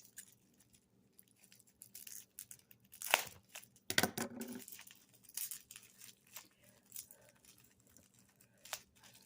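Packaging being handled: rustling and crinkling, with two louder crackles about three and four seconds in.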